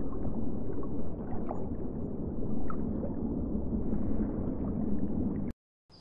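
Aquarium water heard underwater: a steady low watery rush with faint bubbling, which cuts off suddenly about half a second before the end.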